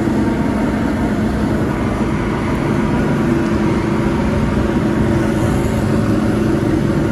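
Steady street traffic noise with car engines running close by: an even, unchanging hum.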